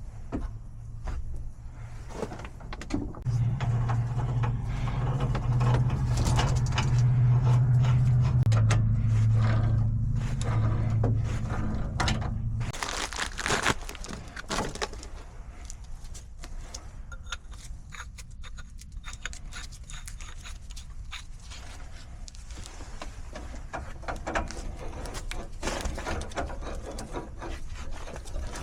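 A steady low motor hum, louder after about three seconds, that cuts off sharply about halfway through. It is followed by scattered clinks and scrapes of metal gas-pipe fittings and tools being handled while a sediment trap is assembled.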